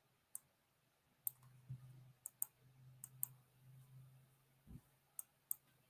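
Faint computer clicks, about eight, spaced irregularly.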